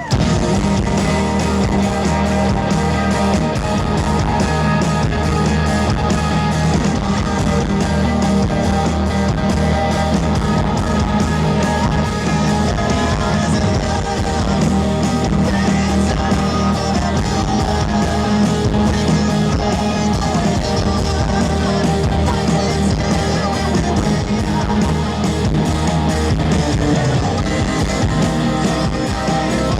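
Live rock band music, steady and loud, with guitar prominent.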